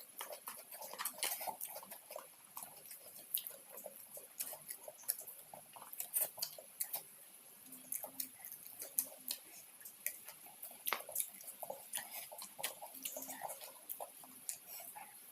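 Close-miked eating of fried fish with rice: chewing and lip smacks, heard as a quick, irregular run of wet clicks several times a second.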